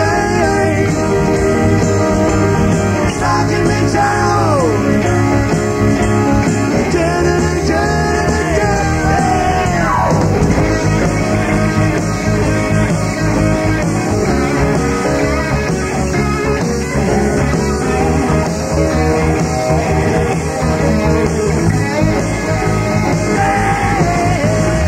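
Rock band playing live through an instrumental stretch of the song, with a lead line that slides and bends in pitch for the first ten seconds or so.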